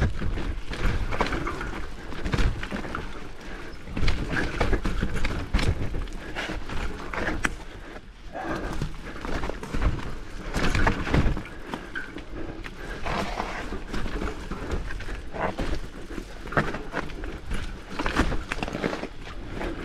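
Mountain bike ridden over a rough dirt trail: constant tyre and ground noise with many irregular knocks and rattles as the bike hits bumps.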